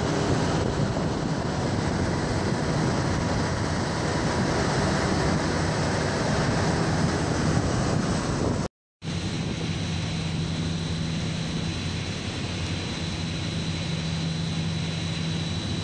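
Water pouring from a pipe outlet into a clarifier tank, a steady rushing splash. After a brief break about nine seconds in, the rushing goes on with a steady low machine hum and a faint high whine added.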